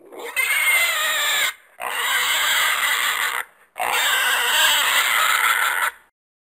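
A horse calling three times in quick succession. Each call is loud and harsh, lasts about one and a half to two seconds, and has a wavering pitch.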